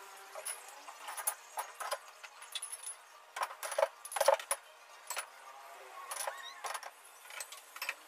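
Glass bottles clinking and knocking against each other and the refrigerator's wire shelves as they are stacked back in: quick, irregular clinks, loudest in a cluster about three and a half to four and a half seconds in.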